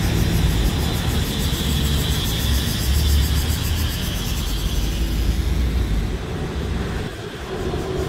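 Chorus of cicadas giving a steady, high, fast-pulsing buzz that fades about six seconds in, over a strong low rumble.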